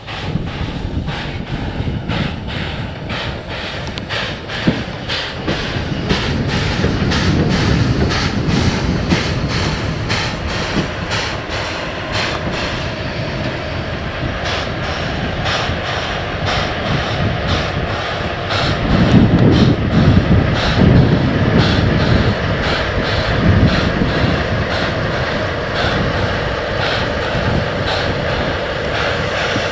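A train of a steam locomotive, a DE10 diesel locomotive and passenger coaches passing slowly, with a regular beat of about three strokes a second. From about halfway a steady engine drone comes in, and there is a louder low rumble about two-thirds of the way through.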